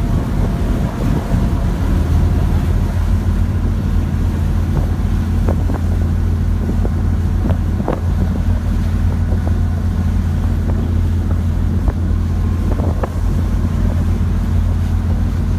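Motorboat engine running steadily with a low hum, with wind blowing on the microphone.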